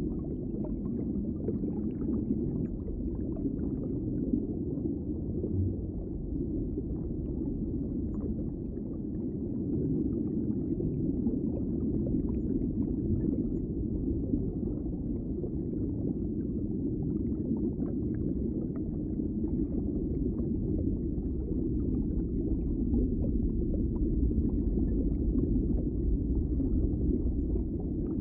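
Underwater ambience: a steady, muffled low rumble with faint scattered crackles above it.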